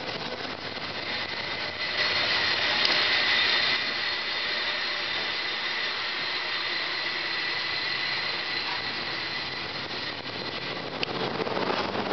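San Francisco cable car in motion: a steady rolling, rushing noise with a thin high whine running through it, louder for a couple of seconds about two seconds in.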